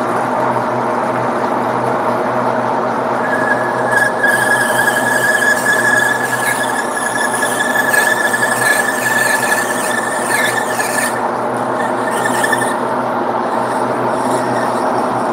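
A metal lathe runs steadily with its motor and gear hum. From about three seconds in, the cutting tool squeals on the spinning bushing blank with one high, steady tone, which stops about eleven seconds in.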